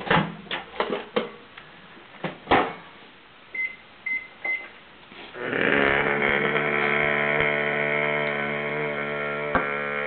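Countertop microwave oven: a few knocks at first, then three short keypad beeps about four seconds in, and from about five seconds in the oven runs with a steady hum, heating a bowl of soup.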